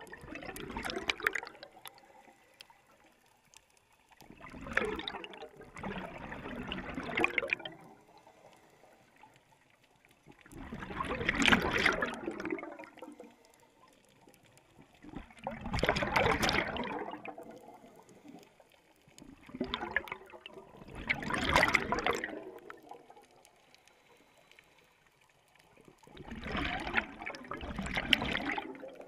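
Scuba diver breathing through a regulator underwater: a bubbling rush of exhaust bubbles with each breath, coming about every five seconds and lasting a couple of seconds each time.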